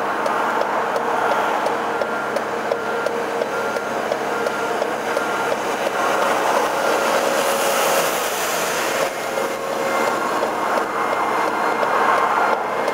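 Traffic and a Johnston road sweeper running on the carriageway, a steady engine and road noise with a short beep repeating about every half second or so, swelling near the end as the sweeper with its brush turning comes close.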